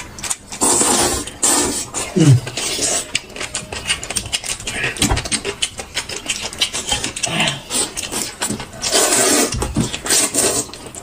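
Close-up eating sounds: chewing and crunching of food, with rapid crackling clicks and rubbing noises, and a short falling sound about two seconds in.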